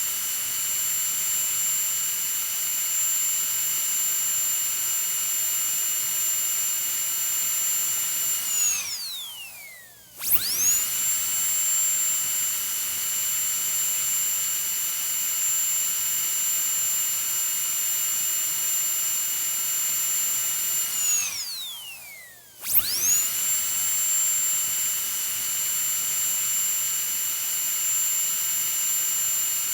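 High-speed dentist's drill whining at a steady high pitch. Twice it is let go and spins down in a falling whine, then starts up again sharply a second or so later.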